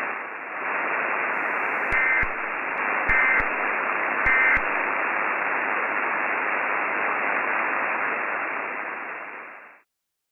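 Weather-radio static hiss with the muffled, narrow sound of a radio channel, broken about two seconds in by three short buzzy data bursts a little over a second apart: the EAS end-of-message code that closes an alert. The static then fades out near the end.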